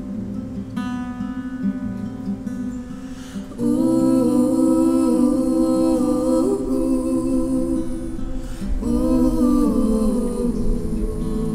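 Acoustic guitar playing with two voices singing and humming in harmony. It is softer at first; the voices come in fuller and louder about three and a half seconds in.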